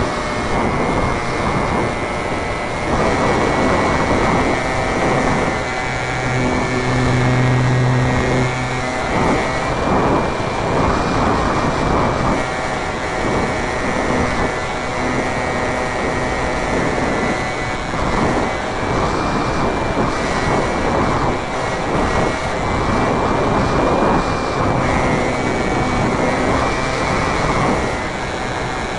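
Onboard sound of a Robbe Cessna Cardinal radio-controlled model plane in flight: steady rushing air noise over the camera with the motor's steady high tone underneath. A low hum comes in for about three seconds around six seconds in.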